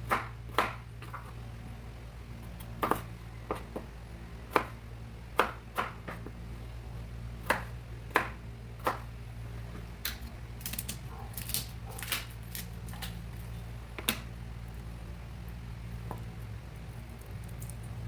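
Irregular sharp knocks and clicks of a knife striking a cutting board during food prep, over a steady low hum.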